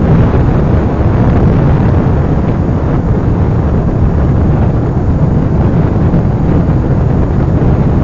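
Wind buffeting the microphone of a phone carried on a moving motorcycle: a loud, steady low rumble, with the motorcycle's running engine mixed in beneath it.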